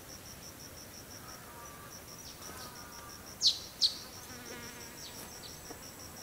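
High-pitched insect chirping in an even pulse of about five chirps a second, with a brief break early on. About halfway through, two short, sharp descending calls stand out as the loudest sounds.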